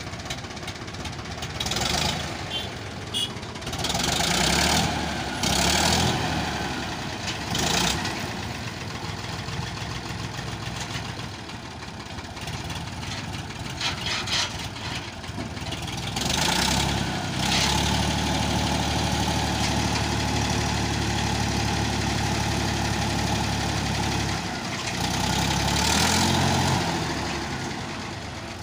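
Mahindra 365 DI tractor's diesel engine running, mostly at idle, then holding a higher, steadier speed for several seconds in the second half, while the trolley is tipped by the hydraulics. Several short, loud bursts of noise come in the first half.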